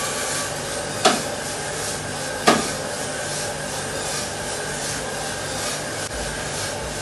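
SAS 3 kg drum coffee roaster running, with its blower, gas burner and turning double-wall drum giving a steady rushing noise. Two sharp clacks come about a second and about two and a half seconds in.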